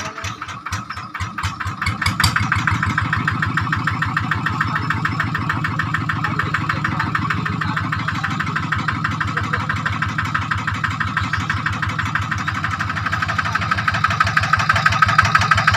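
Single-cylinder diesel engine of a Quick two-wheel hand tractor running with a rapid, even chugging. It picks up speed and gets louder about two seconds in, then runs steadily, rising a little again near the end.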